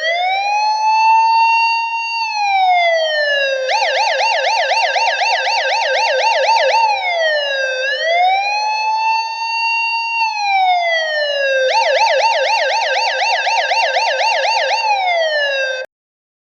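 Electronic police siren alternating between a slow wail and a fast yelp. It rises and falls slowly, switches to rapid sweeps at about four a second, goes back to the wail, yelps again, then falls and cuts off suddenly near the end.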